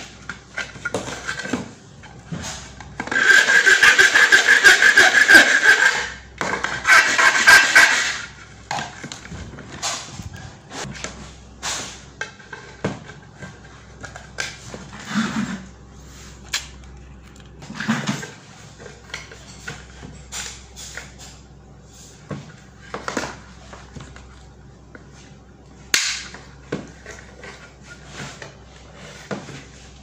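Desk-side handling noise: scattered clicks, taps and knocks of things being moved about. Near the start come two loud rasping, crinkling noises, one about three seconds long and one about a second long.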